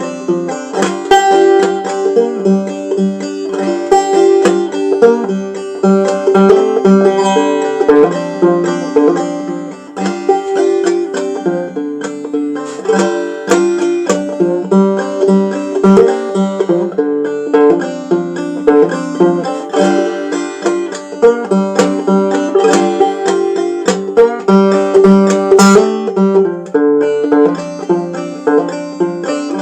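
Banjo played clawhammer style: a steady, unbroken run of plucked and struck notes in an old-time rhythm.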